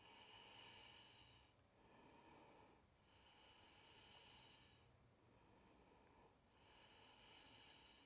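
Very faint, slow breathing, long breaths in and out of about a second and a half each, alternating softer and stronger, held in a seated yoga twist.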